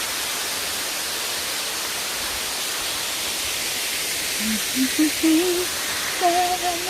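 Waterfall rushing steadily as an even hiss, with the falls running low. In the last couple of seconds a person hums a few short notes that step upward, then holds one note.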